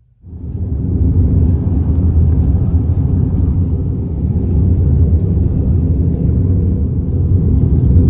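Steady low road and engine rumble heard from inside a vehicle cruising at highway speed, starting abruptly a moment in.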